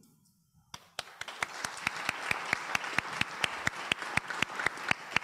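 Audience applauding, starting about a second in after a near-quiet moment. A dense wash of many hands clapping, with one person's sharp claps close to the microphone standing out in a regular run of about four to five a second.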